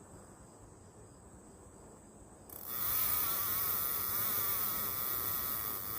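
Insects buzzing in a loud, steady chorus, a high hiss with a wavering trill, that comes in suddenly about two and a half seconds in after a quiet start.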